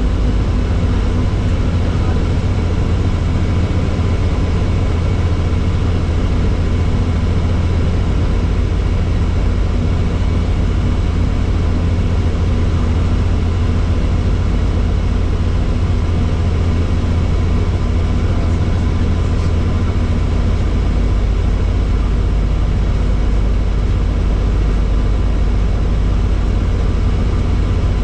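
Helicopter engine and rotors running steadily: a constant deep drone with a few faint steady whining tones above it.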